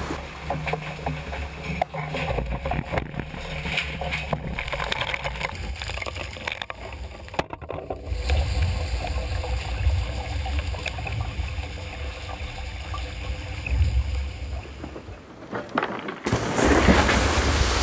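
Water sloshing and gurgling inside the cabin of a capsized yacht lying upside down, with a low rumble and scattered knocks of loose gear. About sixteen seconds in it switches suddenly to a steady outdoor rush of wind and water around the upturned hull.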